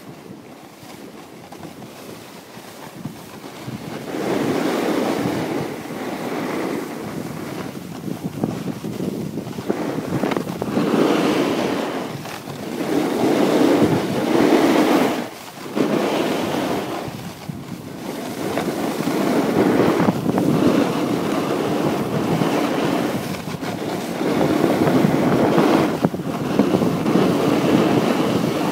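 Wind rushing over the microphone while a snowboard slides and scrapes over groomed snow at speed, the rush swelling and fading in long waves, with a brief drop about fifteen seconds in.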